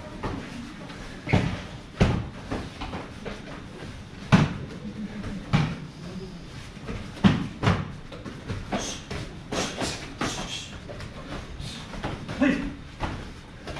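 Irregular thuds and slaps of punches and kicks landing on bodies during full-contact Kyokushin karate sparring, a dozen or so strong hits at uneven intervals.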